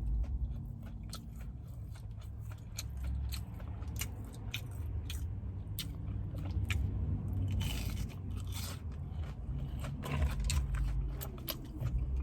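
Close-up crunching and chewing of crunchy food, a run of sharp crunches and clicks as mouthfuls are bitten and chewed, with a brief rustling noise about two thirds of the way through.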